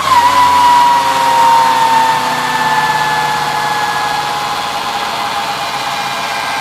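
Electric GSX-R150 conversion's motor and drivetrain whining on a chassis dyno, its rear wheel spinning on the roller. The whine falls slowly in pitch and fades after peaking at the end of a full-throttle pull, as the wheel coasts down.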